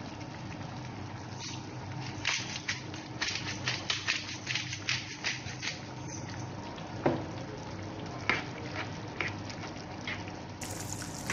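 Lentils simmering in vegetable broth in a frying pan over a low steady hum, with a run of quick small ticks and pops in the first half that thin out to a few scattered ones later. A spatula stirs the pan near the end.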